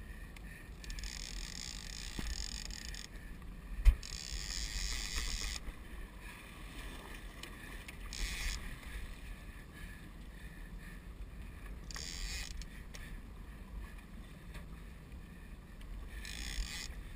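Wind and water on a boat under way at sea: a steady low rumble with several hissing bursts of water wash against the hull as it rolls through the swell, and a single sharp knock about four seconds in.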